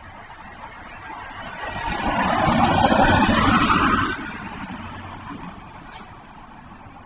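A car driving past at speed: its tyre and engine noise swells over about two seconds, drops sharply as it goes by, and fades away. Two short clicks near the end.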